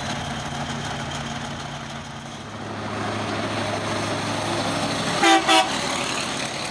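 KAMAZ rally truck's Liebherr diesel engine running as the truck drives past on a wet road, growing louder as it comes closer, with tyre hiss. About five seconds in, a horn gives two short, loud toots.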